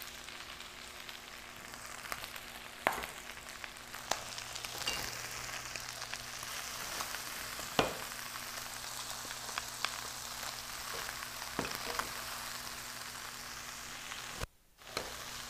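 Chinese celery, leeks and red chili sizzling in hot oil in a wok, stirred with a wooden spatula that knocks against the pan a few times. The sizzle drops out briefly near the end.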